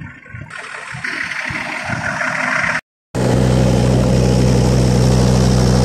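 Wind buffeting the microphone in an uneven rush, then, after a sudden cut, a semi-truck's diesel engine running at a steady speed with an even, low hum.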